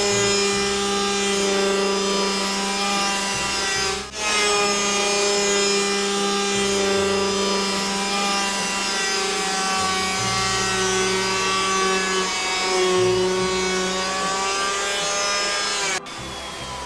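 Handheld electric woodworking power tool running steadily on wood, a constant whine with slight sags in pitch under load. It breaks off for an instant about four seconds in and stops abruptly near the end.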